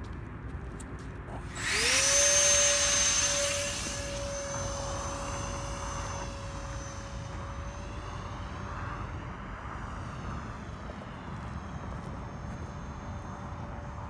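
Electric ducted fan (FMS 50 mm) of a PlanePrint EDF Seagull RC model plane spooling up to full throttle for a hand launch about a second and a half in. It rises within a moment to a loud, steady high-pitched whine. After about two seconds the whine drops to a fainter steady level as the plane flies away.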